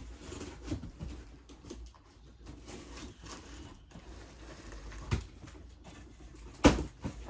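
A wrapped present being opened: paper and packaging rustling and tearing in short bursts, with a sharp knock near the end.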